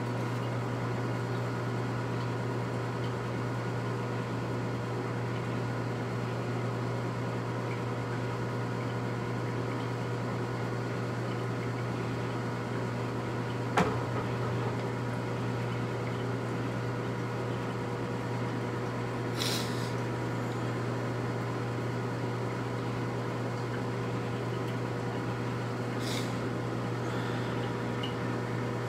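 Steady electrical hum with a low mains drone and faint steady tones above it. A single sharp click about halfway through, and two brief high hisses later on.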